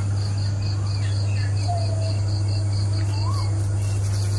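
Crickets chirping in a rapid, even pulsing trill over a steady low hum. A bird gives two short upward-curving calls, one near the middle and one just before the end.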